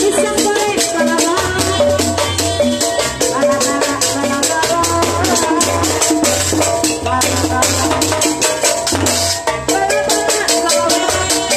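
Live tanji band music for a kuda renggong procession: a clarinet melody over a pulsing drum beat and fast, rattling jingle percussion, loud and unbroken.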